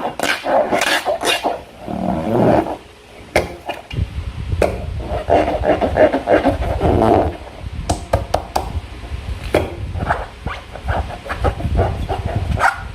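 Slime and rubber balloons being squeezed and worked by hand, giving irregular wet squelches and squeaks with sharp little pops and clicks.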